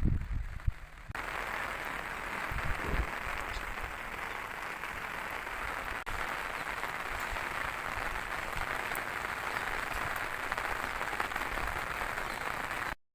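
Steady rain falling, an even hiss that starts abruptly about a second in, after a few low thumps of handling noise.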